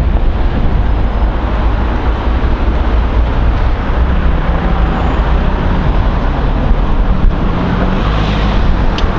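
Loud wind buffeting the microphone: a dense, rumbling roar heaviest in the low end.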